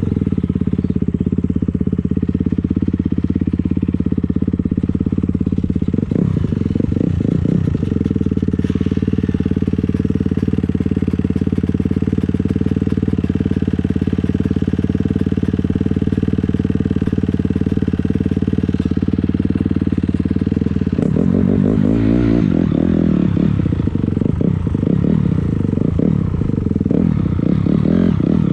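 A 250 dirt bike's engine running at a steady, even pitch for about twenty seconds, then revving up and down unevenly over rougher trail.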